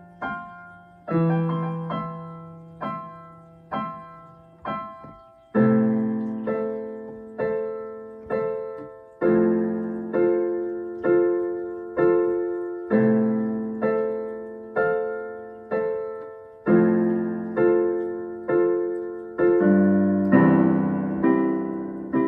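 Digital piano playing an instrumental passage of block chords, struck about once a second and each left to ring away. The chords are quiet and sparse at first, then fuller and louder from about five seconds in.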